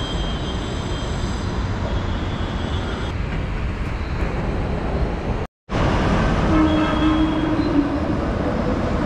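Steady rumbling ambience of an elevated metro station, with a brief dropout to silence a little past halfway. After it, a steady low hum joins the noise.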